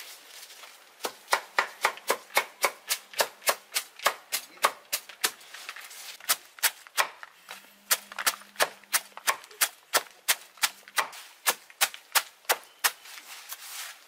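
A machete chopping a pile of leafy greens on a wooden chopping block: fast, even strokes about four a second, starting about a second in, with a short pause near the middle.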